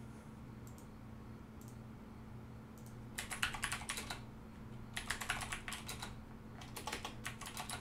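Typing on a computer keyboard in three short bursts of rapid key clicks, starting about three seconds in, over a faint steady hum.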